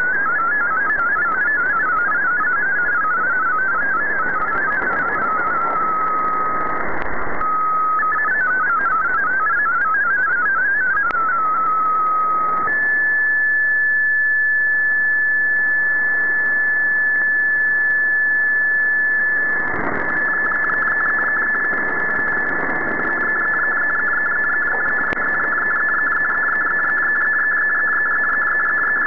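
Shortwave radio receiving an MFSK32 digital text transmission: a rapid warble of hopping tones over steady static, which gives way about 13 s in to a single held tone. About 20 s in a denser buzz of tones begins, the MFSK picture being sent.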